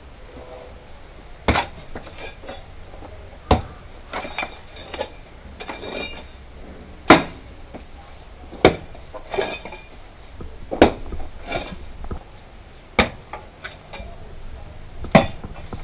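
A metal-bladed digging tool striking and breaking red earth by hand, with about seven sharp chopping blows roughly every two seconds and soil scraping and falling between them.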